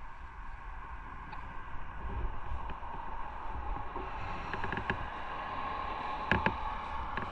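Motorcycle running on the road, its engine a steady hum under wind and road noise. A few short knocks come in the last few seconds, the loudest about six seconds in.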